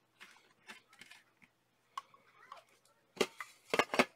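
Hands fitting a laptop's plastic memory cover back in place, with faint rustling and light clicks. Near the end come several sharp clicks and clatters as a screwdriver is set down in a plastic tray.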